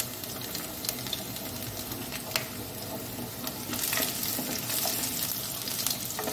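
Chopped garlic sizzling in hot mustard oil with nigella seeds and dried red chillies in a non-stick kadai. A wooden spatula stirs it and clicks now and then against the pan, and the sizzle grows a little louder from about four seconds in as it is stirred.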